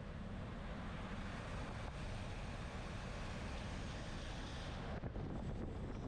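Wind buffeting the microphone of a camera on a racing bicycle, a steady low rumble with a rushing hiss over it that drops away about five seconds in.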